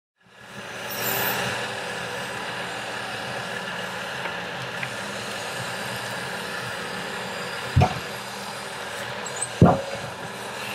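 Diesel timber-loading machine with a hydraulic log crane running steadily in the forest, fading in at the start. Two heavy knocks come near the end, the second the loudest.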